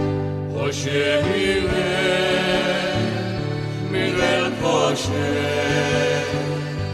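A havanera sung by a group of voices over instrumental accompaniment.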